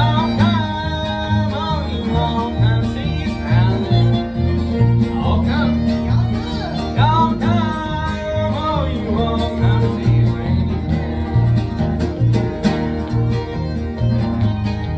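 A man singing a country-style song while strumming a steel-string acoustic guitar; about nine seconds in the voice stops and the guitar carries on alone with steady strummed chords.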